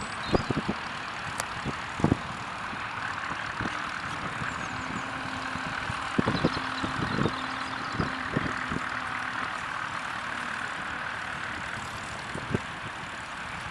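Tractor engine running steadily, with a faint steady hum in the middle of the stretch. Several short low thumps or knocks come and go over it.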